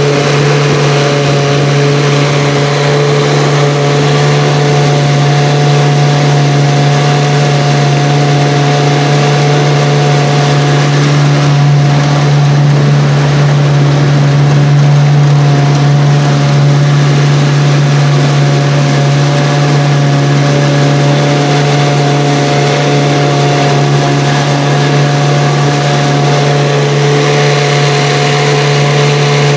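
1970 Johnson 9.5 hp two-stroke outboard motor running steadily under way, holding one even pitch throughout.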